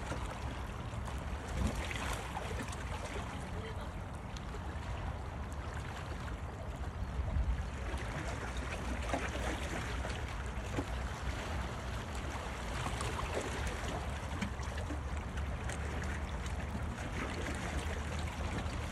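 Steady outdoor shore noise: wind buffeting the microphone, with sea water washing against the rocks.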